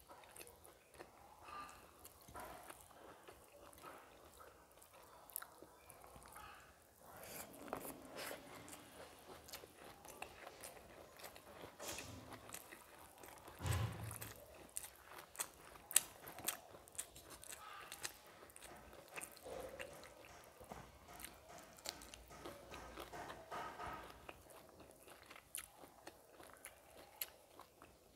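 Close, quiet eating sounds: fingers mixing soft basmati rice and cabbage ghonto on a steel plate, with chewing and scattered wet mouth clicks. A few louder knocks stand out about halfway through.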